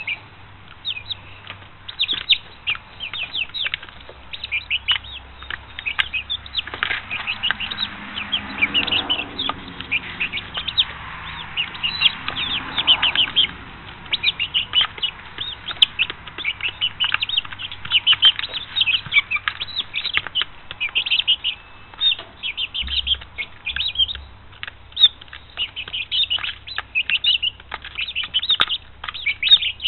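A brood of five-week-old chicks peeping continually in quick, short, high chirps as they feed. There is a stretch of louder rustling from about seven to thirteen seconds in.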